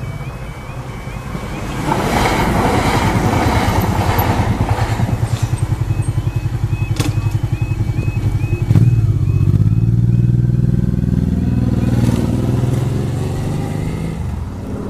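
Motorcycle engine running close by with a steady pulsing beat, growing louder about nine seconds in as the bike rides off. Behind it a level crossing's two-tone yodel alarm sounds and stops about twelve seconds in.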